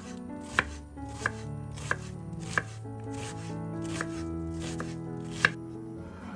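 Knife chopping vegetables on a cutting board: single sharp knocks about every two-thirds of a second, a short pause about three seconds in, then three more chops.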